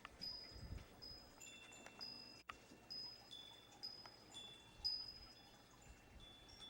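Faint chimes ringing: a handful of high, clear tones at a few fixed pitches sound at irregular moments, each ringing on briefly and overlapping the next.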